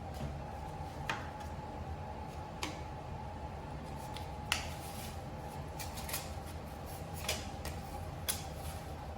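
Scattered light taps and clicks of hand work on a door frame, about seven in all with the sharpest about four and a half seconds in, over a steady low hum.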